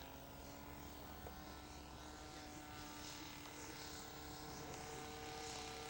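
Radio-controlled scale model airplane's engine running steadily at a distance, a faint buzz with a steady pitch that grows slightly louder as the model comes in to land.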